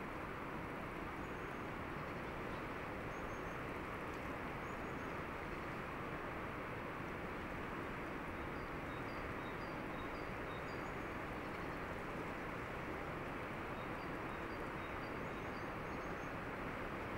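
Steady rushing noise of a flowing river, with a small bird calling in repeated short, high chirps, in runs about halfway through and again near the end.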